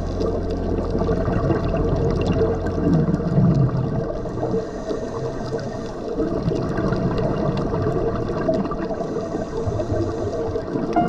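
Underwater sound on a scuba dive: a steady muffled rumble and hum of water, with a gurgling burst of exhaled bubbles about three seconds in and another near the end.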